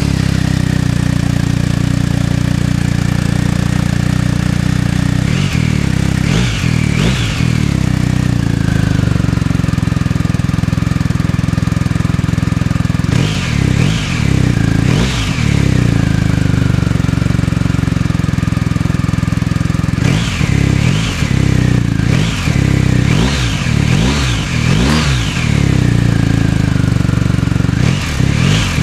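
BMW R 1250 RS's 1254 cc boxer twin, just started, idling through its original silencer and given repeated short throttle blips: a couple at a time at first, then a quick run of about half a dozen, each rev rising and falling back to idle.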